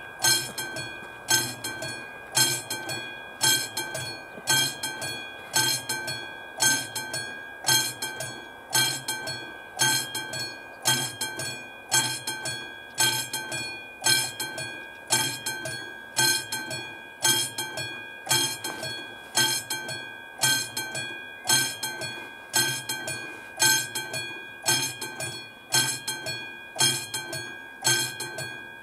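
Classic mechanical bell of an AŽD 71 level-crossing warning signal ringing in a steady rhythm, about two metallic strikes a second, each ringing on briefly. It warns that the crossing is closed for an approaching train.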